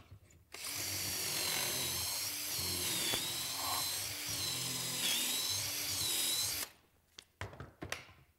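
Cordless drill spinning a stepped pocket-hole bit into wood through a pocket-hole jig, running for about six seconds. The motor's whine dips in pitch twice as the bit bites and is eased back to let the chips clear. A few light knocks follow near the end.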